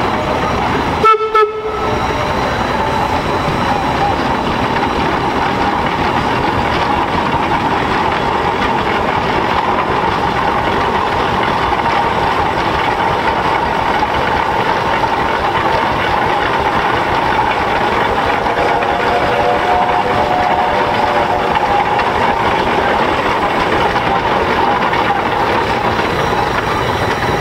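A steam traction engine running as it drives slowly across gravel, a steady mechanical noise throughout, with a short break about a second in.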